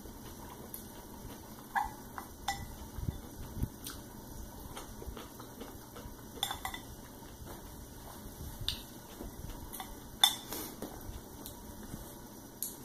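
Chopsticks clicking and scraping against a ceramic bowl of noodles: about seven separate sharp clicks a second or two apart, the loudest about ten seconds in.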